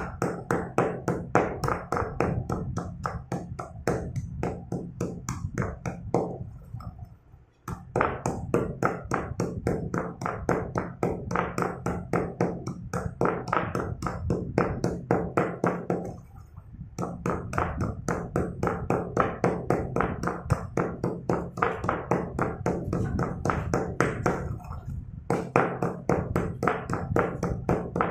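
Stone pestle pounding broken slate pencils in a marble mortar: rapid crunching strikes, several a second, as the pieces are crushed toward powder, with brief pauses about seven and sixteen seconds in.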